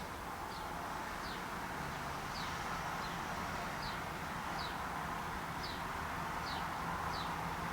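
A bird outside repeating a short, high, downward-slurred chirp about once a second, over a steady background hum.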